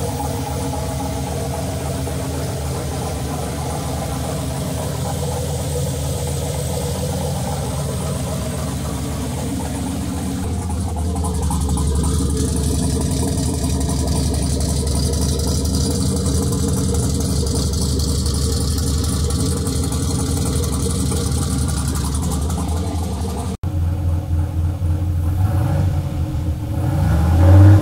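Freshly rebuilt turbocharged LS V8 idling steadily, louder and deeper from about ten seconds in. Near the end it gets a short rev that rises and falls.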